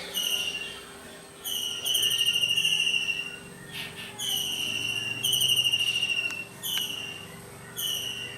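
Kingfisher calling: a series of shrill, trilled whistles that slide slightly down in pitch, some short and a couple about a second long, with short gaps between them.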